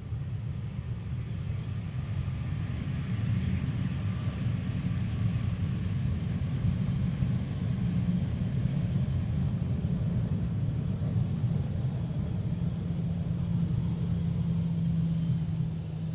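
Jet airliner engines rumbling low as the plane passes close on its landing approach, growing louder about three seconds in, with a faint engine whine above the rumble.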